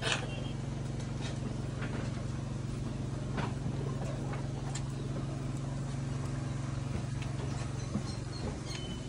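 A steady low hum, with scattered light clicks and knocks over it.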